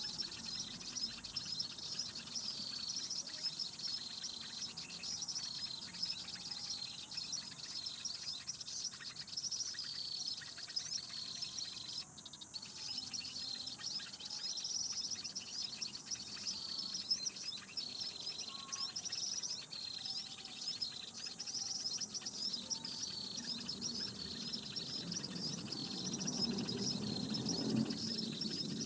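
Prenjak (prinia) lure call played from a recording on a loop: a rapid, high chirping phrase repeating at an even pace about once a second. A low rustling joins near the end.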